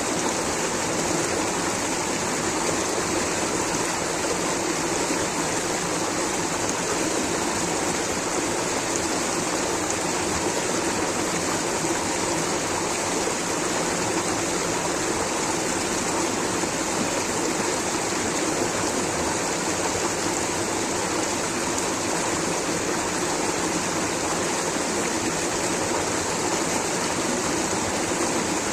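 Rushing water, a steady, unbroken hiss with no change in level.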